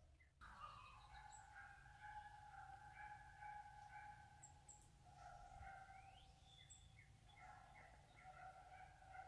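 Faint outdoor ambience: scattered bird chirps over a steady low hum.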